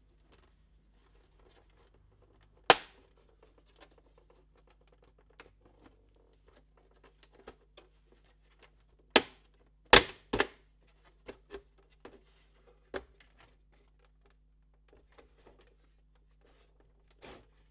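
Sharp plastic snaps and clicks as a PS4 Pro's bottom plastic shell is pried loose from its clips, with faint handling rustles and ticks in between. There is a loud snap about three seconds in and a cluster of three around nine to ten seconds in.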